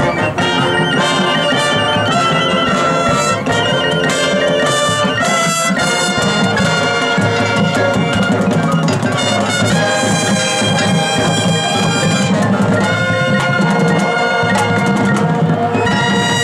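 High school marching band playing: brass sustaining loud chords that change every second or two over steady drums.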